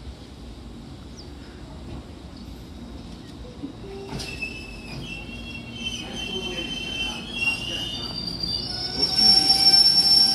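Aizu Railway 6050 series 200-number electric train pulling in to the platform, its running rumble growing as it nears. High-pitched squealing from the wheels and brakes sets in about four seconds in as it slows, getting louder toward the end.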